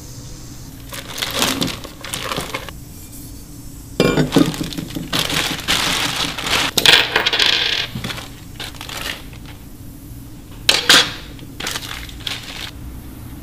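Plastic packaging bags crinkling and rustling as exhaust hardware is unwrapped, with small metal parts clinking down onto a workbench; a couple of sharp clicks come near the end.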